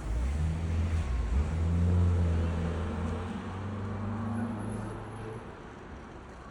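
A road vehicle's engine going by, a low steady hum that swells to its loudest about two seconds in and then fades away about five seconds in.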